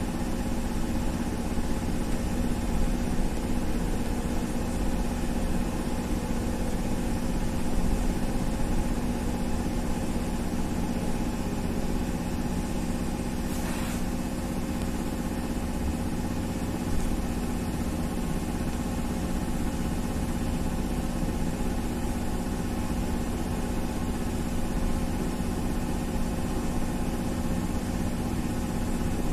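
Cabin noise inside a BKM 333 trolleybus under way: a steady electric hum over road rumble and hiss, even throughout.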